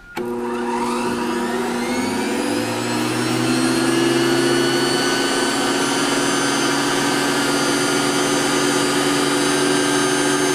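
Prolux CTX water-filtration vacuum's two-speed motor switched on at its low first speed, the quieter air-purification setting: its whine rises over the first couple of seconds as it spins up, then runs steadily.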